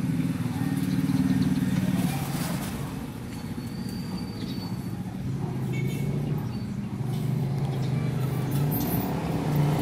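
A motor vehicle engine running close by, a steady low hum whose pitch steps up and down a few times. A brief thin high whistle sounds about four seconds in.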